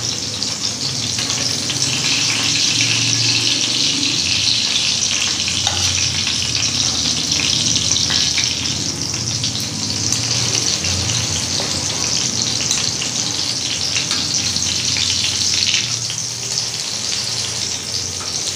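Chicken kababs shallow-frying in oil on a tawa griddle: steady sizzling with a fine crackle as water still cooks out of the patties. The sizzle is the sign they are not quite done; when it dies away, the kababs are ready.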